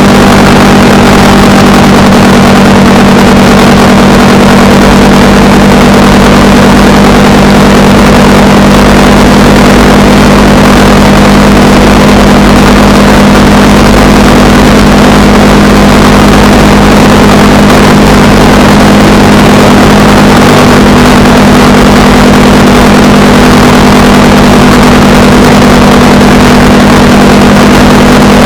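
Honda Rebel 300's single-cylinder engine running at a steady cruising pace, with steady wind noise over it.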